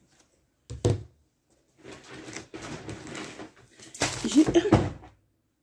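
Handling noises as shopping items are fetched out of bags: a sharp knock about a second in, then a few seconds of plastic and packaging rustling, louder near the end with a short voice-like sound.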